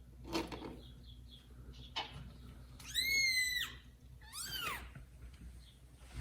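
Newborn kitten mewing: two high, thin cries, the first held for about half a second, the second falling in pitch just after.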